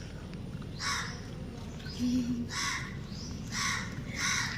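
A bird cawing: four short, harsh calls spread across the few seconds.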